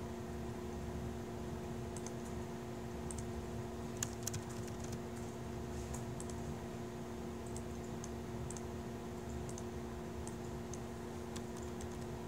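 Typing on a laptop keyboard: irregular key clicks, with one sharper click about four seconds in, over a steady hum.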